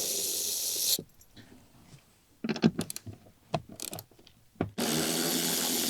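Cordless power ratchet with a 12 mm socket running on the rear seat bolts for about a second, then several metal clicks and clinks, then the ratchet running again near the end.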